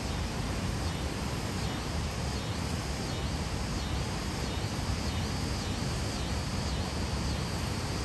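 Waterfall rushing steadily, with a high chirp repeating about twice a second from about a second in until near the end.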